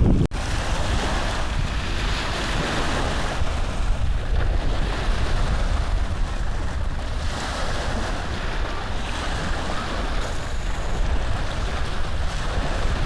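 Steady rushing noise with a low rumble, like wind buffeting the microphone. It drops out for an instant just after the start.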